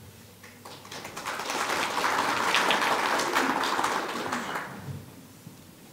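Audience applauding: a round of hand clapping that builds up about a second in, peaks, then dies away near the end.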